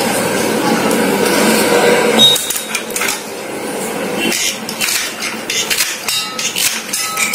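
Okra pods being cut by hand, with short sharp clicks and knocks as pieces fall onto a steel plate and the cutter handles it, thickest in the second half. A steady hum fills the background for about the first two seconds, then stops.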